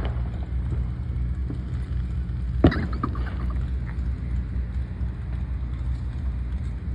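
Low, steady rumble of an idling truck engine, with one sharp knock about two and a half seconds in.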